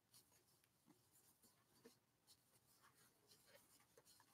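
Near silence, with faint scattered rustles and small ticks of bulky yarn being worked with a crochet hook.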